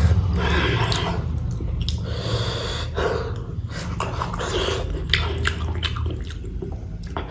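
Close-miked wet chewing and lip-smacking of rice and curry: irregular clicks and squelches over a steady low hum.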